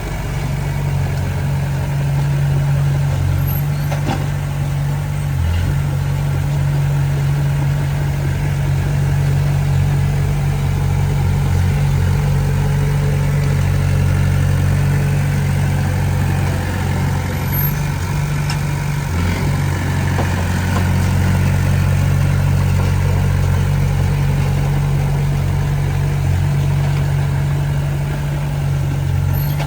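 Heavy earthmoving machine's diesel engine running steadily, a deep even hum with little change in speed.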